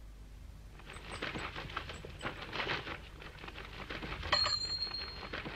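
Cartoon sound effect: an irregular crackling rustle made of many short strokes, with a steady high tone that comes in about four seconds in and lasts about a second.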